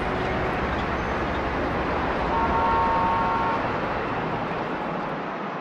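City traffic ambience, a steady rushing noise, with a horn sounding for about a second in the middle. The sound starts fading out near the end.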